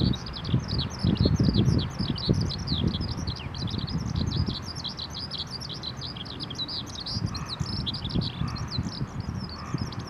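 Eurasian skylark singing a long, unbroken run of rapid, high chirping notes, with gusts of wind rumbling on the microphone.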